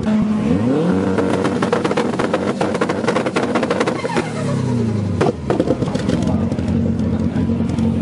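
Subaru Impreza WRX STI's turbocharged flat-four revved hard from idle, held high for a few seconds with rapid crackling, then falling back to idle about four to five seconds in, with turbo flutter as the throttle closes.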